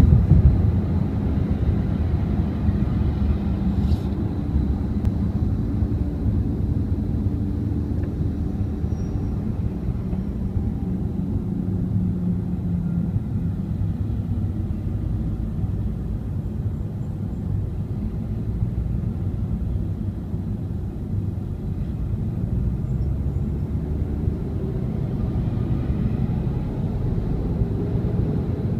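Steady low rumble of a car driving on a freeway, engine and tyre noise heard from inside the cabin.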